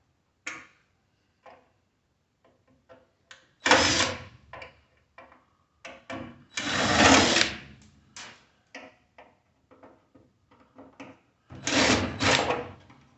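Power screwdriver running in three short bursts, backing out the screws that hold a microwave oven's transformer, with small clicks and knocks of the tool and screws in between.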